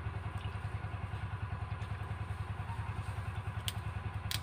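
A small engine running steadily with a fast, even pulse, and two short sharp clicks near the end.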